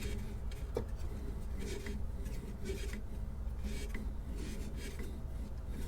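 Pencil drawing a line around a turned wooden bulb: soft scratchy strokes about a second apart, with a short click about a second in, over a steady low hum.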